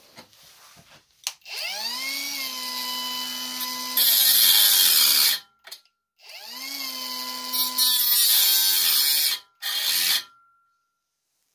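Small cordless angle grinder spinning up to a steady whine, then biting into a metal bar clamped in a vise with a loud hissing grind that stops after about a second. It spins up again about six seconds in and grinds a second time, its pitch sagging under the load, with a last short burst near the end.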